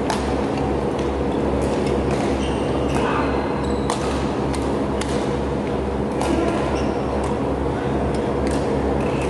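Badminton rally: sharp racket hits on the shuttlecock about once a second, with short high shoe squeaks on the court floor, over a steady low hum.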